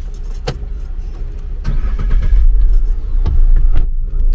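Low rumble of a Chery Tigo 2 car heard from inside its cabin, with scattered clicks and knocks. It gets louder about two seconds in.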